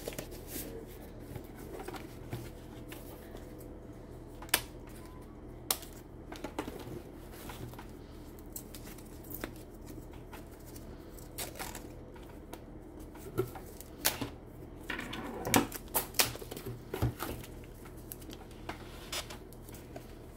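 Handling noise from a doll being worked free of its cardboard box and paper packing: scattered clicks and taps with short bursts of paper rustling and crinkling, a few sharper clicks standing out.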